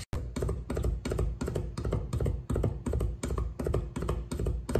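A Chinese cleaver rapidly mincing garlic on a round wooden chopping block, in even chopping strokes about five a second.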